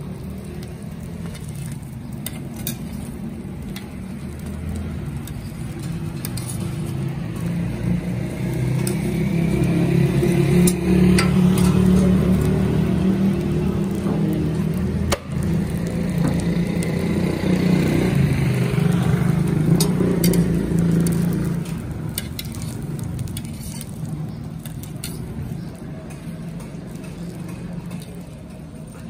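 Street-stall ambience: parathas sizzling on a large griddle, with a motor vehicle's engine growing louder, holding for about ten seconds and fading away, plus the odd clink of utensils.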